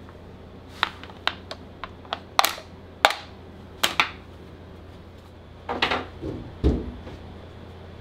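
A series of sharp hard clicks and taps, a wooden mallet knocking on a plastic chocolate bar mold, then a duller, heavier knock a little before the end. A steady low hum runs underneath.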